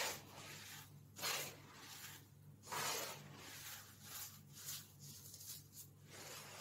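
Hands crushing and raking clumps of baking soda powder: soft crunching swishes, three louder strokes in the first three seconds, then smaller, quicker ones.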